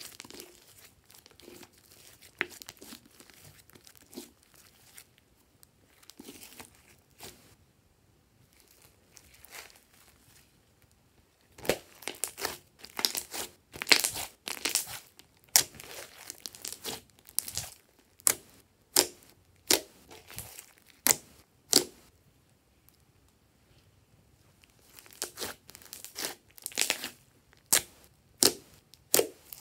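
Hands kneading and squeezing a large mass of thick slime, with soft crackling and sharp pops as trapped air bursts. The pops come thick and fast in the middle stretch, at times about two a second, and again in a cluster near the end.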